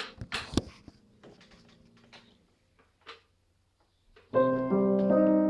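A few soft clicks and knocks, then about four seconds in a piano starts playing: held chords with a melody over them.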